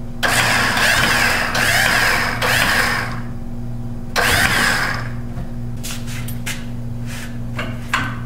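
Freshly rebuilt Western snowplow hydraulic pump running on its electric motor for about three seconds as it raises the lift ram, with a whine that wavers up and down, then running again briefly for about a second. A few sharp clicks follow near the end.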